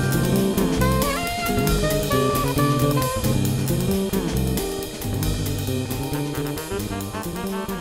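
Instrumental background music with a steady drum-kit beat and a melody line.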